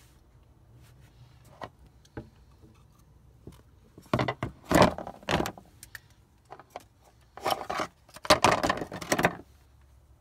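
Plastic and metal parts of a MagnaClean central heating filter handled in a plastic tray: scattered light clicks, then two spells of scraping and clattering, about four seconds in and again near the end.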